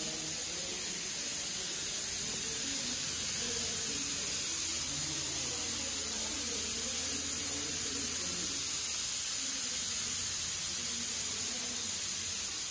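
Steady hissing noise, strongest in the high range, with a faint low murmur underneath.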